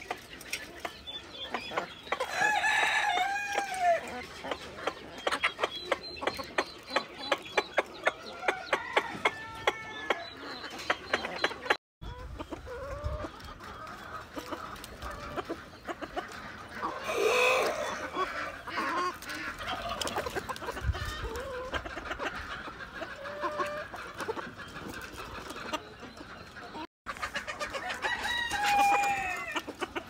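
Chickens clucking while they peck azolla from a hand through wire mesh, with quick sharp pecking clicks running through and a louder call about halfway.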